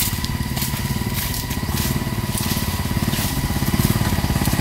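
Small Honda step-through motorcycle's four-stroke single engine running at low speed as the bike rides up toward the microphone, getting steadily louder.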